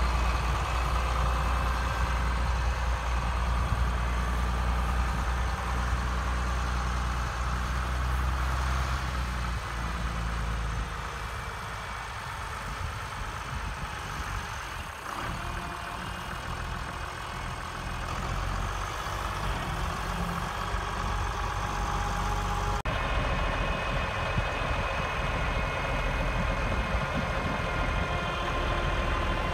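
International 1066 tractor's turbocharged six-cylinder diesel running steadily as the tractor drives. It gets quieter in the middle, then changes suddenly about three-quarters of the way through, after which the engine idles evenly.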